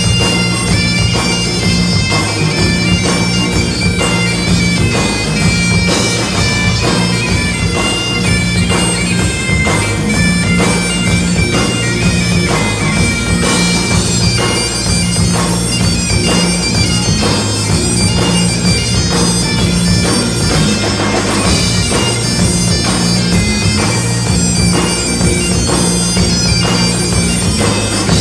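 Great Highland bagpipes playing a lively tune over their steady drones, backed by a live Celtic rock band with fiddle, electric guitar and drums keeping a steady beat.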